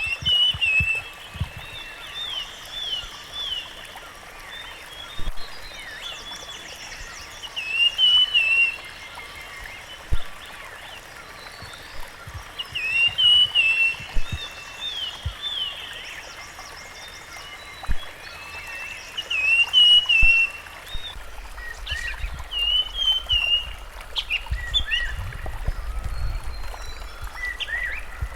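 Rusty-fronted barwing calling in repeated bouts of quick, chattering, up-and-down notes every few seconds, over a steady background hiss. A low rumble comes in during the last several seconds.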